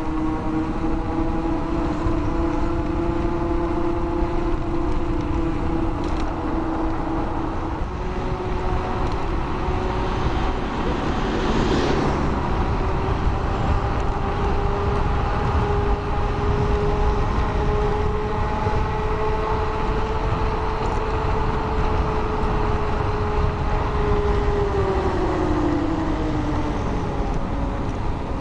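Blade 10 electric scooter being ridden on new tyres: a loud humming whine from the tyres rolling on the road, its pitch following road speed and gliding down near the end as the scooter slows, over a steady rumble of road and wind noise.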